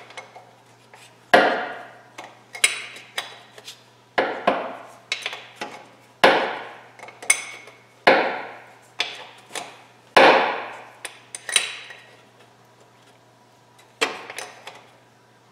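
Ratchet wrench tightening the pipe-plug fill plug into the aluminium transmission case: a series of sharp metallic clicks with short ringing tails, about one or two a second, then a last click near the end.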